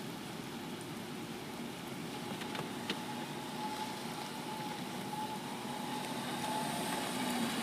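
Steady outdoor background hiss of traffic on wet roads, slowly growing louder. A faint steady hum joins about a third of the way in, and two faint clicks come close together.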